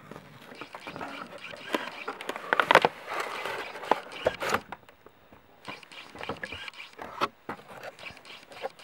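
Cardboard box being opened and handled: rustling and scraping with scattered sharp clicks and knocks as the packaging is pulled apart and the inner tray is slid out.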